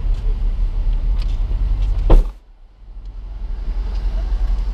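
A stopped car running with a steady low rumble, heard from inside the cabin. A single sharp thump comes about two seconds in, and the sound drops away briefly after it before building back up.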